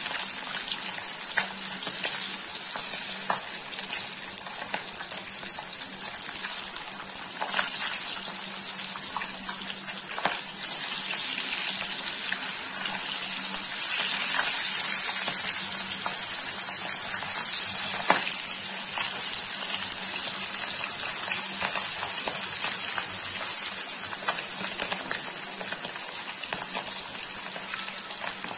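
Fish pieces sizzling steadily in hot mustard oil in a metal kadhai, with now and then the light scrape and tap of a metal spatula moving them in the pan.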